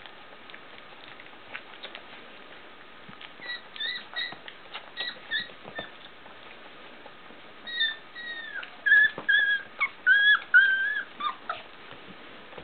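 Young puppies crowding their mother to nurse, whimpering and squeaking in short high-pitched cries, with soft clicking and shuffling between. The cries begin a few seconds in and come louder and closer together near the end.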